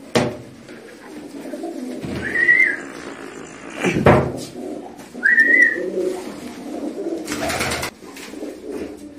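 Fantail pigeons cooing, a continuous low murmur of overlapping coos. Two short high whistled notes come about two and five seconds in, with a sharp knock between them.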